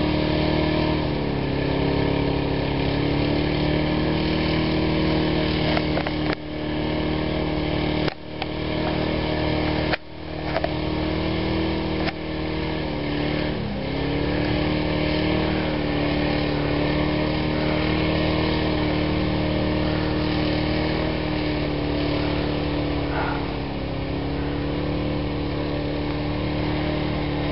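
Willys pickup truck engine running steadily under load as it pushes through deep snow, its pitch dipping a few times. The sound cuts out briefly a few times.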